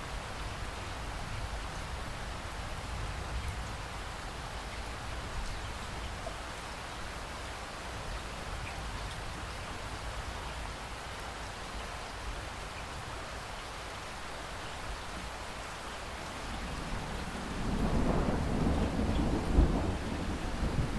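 Steady rain with a low background rumble. About three quarters of the way through, a louder roll of thunder swells in and carries on to the end.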